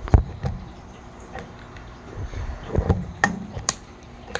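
Long-nosed utility lighter being triggered again and again, giving sharp clicks at uneven intervals as it fails to light. Gusts of wind rumble on the microphone.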